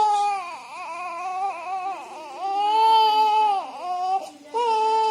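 Newborn baby a few hours old crying in a run of wavering cries, each about a second long with short breaks between; the strongest cry comes a little past halfway and another begins near the end.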